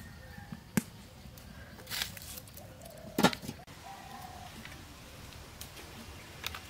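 A few short bird calls in the yard, with several sharp knocks, the loudest about three seconds in.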